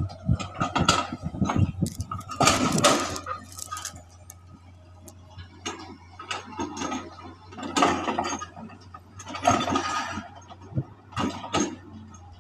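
Excavator working: irregular bursts of clanking and scraping over a steady low hum.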